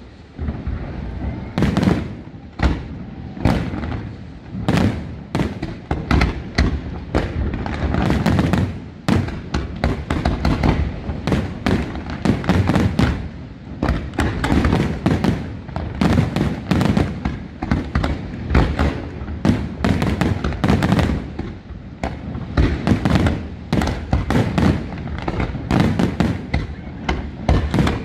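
Aerial fireworks display: shells bursting in a dense, continuous barrage, several bangs a second over a low rumble.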